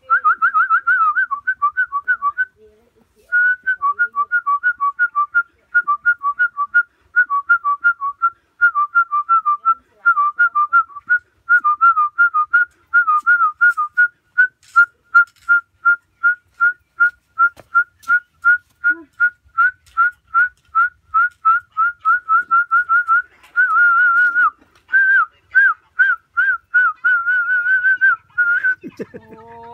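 Human whistling a tune in quick, short notes, about two or three a second, with a brief pause early on and a few longer held notes near the end.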